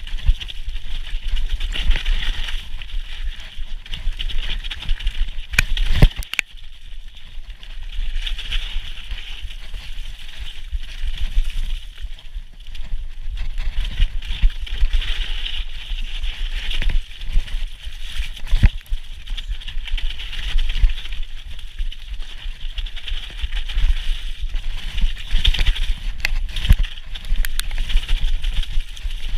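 Commencal Meta HT hardtail mountain bike ridden fast down a wet, muddy trail: a steady rumble of tyres on the dirt and wind on the microphone, with rattles and sharp knocks from the hardtail frame over bumps, the biggest about six seconds in.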